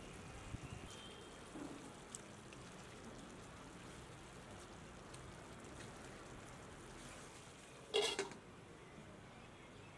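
Faint, steady sizzling of mutton soup cooking in a pot, with a few light clicks. About eight seconds in there is one short, loud, sharp sound.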